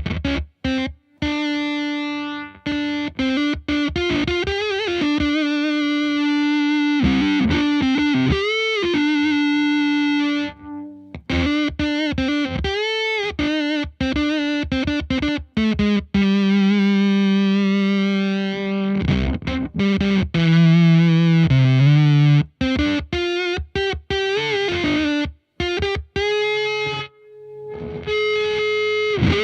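Electric guitar played through a FuzzHugger FX Lab Ratchet gated fuzz pedal into a Laney VC30 valve combo. Sustained single notes, some with bends and vibrato, have a thick fuzz tone. The pedal's gate chops the notes off abruptly into silence between phrases.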